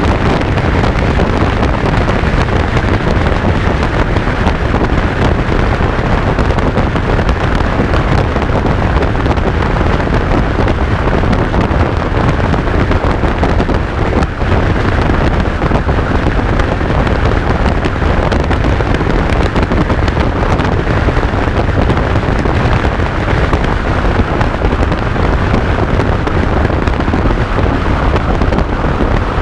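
Loud, steady wind rush buffeting the microphone of a camera mounted on a Suzuki Bandit motorcycle riding at about 110 to 150 km/h, with the bike's running and road noise underneath.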